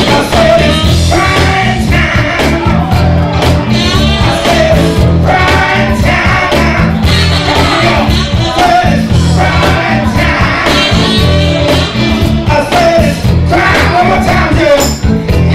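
Upbeat Motown-style soul music with a lead singer over a band's bass line and drums.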